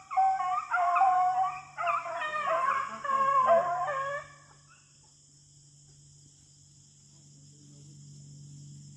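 Several beagles baying on a rabbit's scent trail, overlapping long bawling calls. The calls die away about four seconds in.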